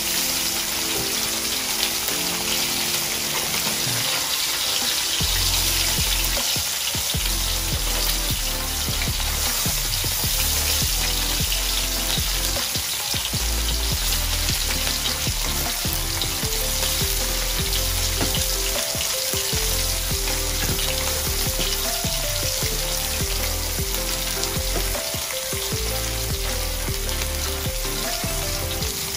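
Whole tilapia frying in hot oil in a wok: a steady sizzle. Background music with a low bass line plays underneath from about five seconds in.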